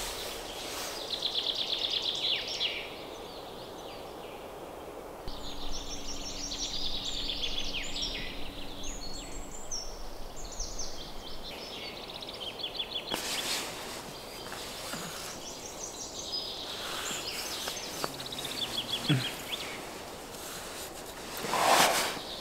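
Songbirds singing in a pine wood in the morning, repeated high trilled phrases over a steady outdoor background hiss. A loud rustle comes near the end.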